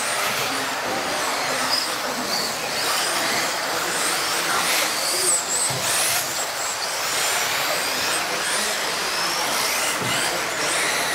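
Electric radio-controlled off-road cars racing on an indoor track: several high motor whines rising and falling in pitch as the cars speed up and slow down.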